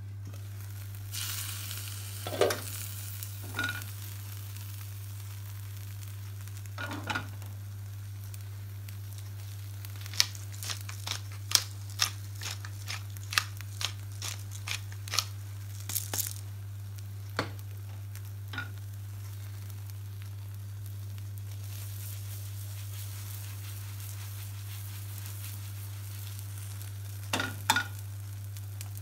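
Masala omelette sizzling faintly in a frying pan, with the clatter of the glass pan lid being lifted off and set down near the start. Midway comes a quick run of sharp clicks as seasoning is added over the omelette, and a couple of pan knocks near the end.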